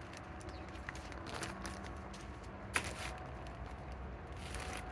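Work gloves being pulled off the hands: faint rustling with one sharp click a little past the middle, over a steady low outdoor rumble.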